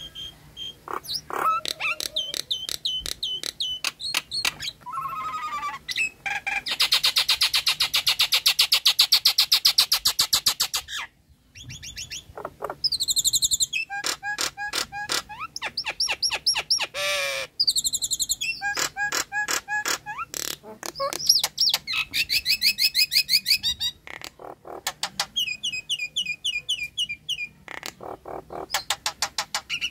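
Nias hill myna song: fast rattling trains of repeated sharp notes and rapid trills, mixed with loud gliding whistles, with a brief break about eleven seconds in.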